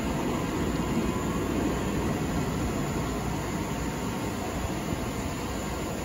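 PowderKeg steel roller coaster's train running along its track out of sight, a steady distant rumble.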